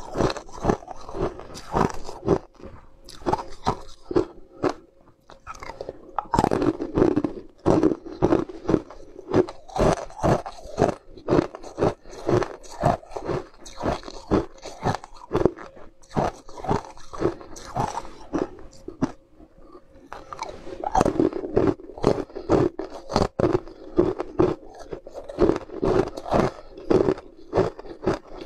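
Close-up crunching and chewing of hard frozen sweet ice pieces: a rapid run of sharp crunches, easing off briefly twice before picking up again.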